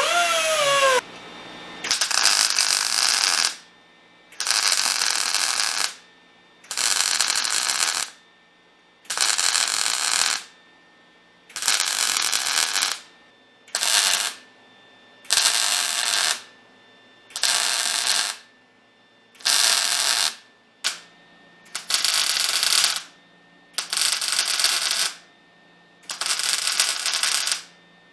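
A small hand grinder's whine, wavering in pitch, cuts off about a second in. Then a wire-feed (MIG) welder lays a series of short beads on steel: about a dozen loud crackling hisses, each a second or so long, with short pauses and a faint hum between them.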